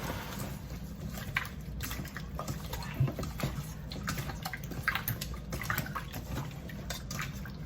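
Hands mixing and rubbing seasoning into raw chicken wings to marinate them, with irregular small wet smacks and clicks.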